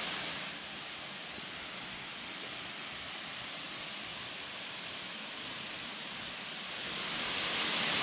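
Third tier (Pha Nam Tok) of Erawan Falls, a cascade pouring into a pool: a steady rush of falling water, growing louder near the end.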